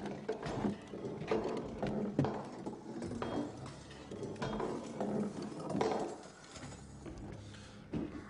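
Boots stepping slowly and irregularly on wooden floorboards, several walkers' footfalls overlapping.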